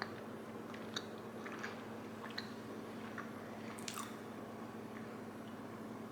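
A person biting into and chewing a chocolate-coated Oreo truffle: a few faint, scattered crunches and clicks over a steady low hum.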